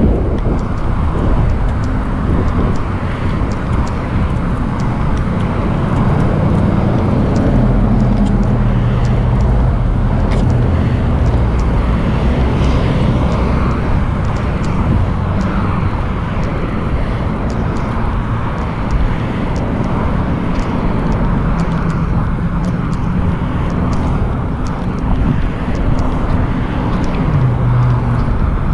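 Steady low rumble of road traffic going by on a multi-lane road.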